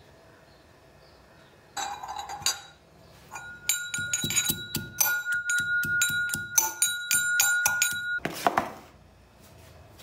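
A metal pestle pounding red chillies in a small stainless steel mortar: a run of sharp, ringing metal clanks, about three to four a second, for roughly four and a half seconds. It is preceded by a short scrape, and a brief rustle follows.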